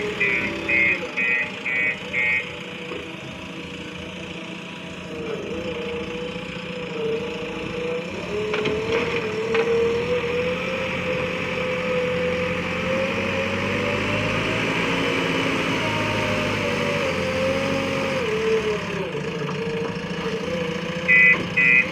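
Diesel engine of a JCB 3DX Eco backhoe loader running and working, its pitch rising and falling as the load changes. A fast run of short, even beeps sounds during the first two seconds and again at the very end.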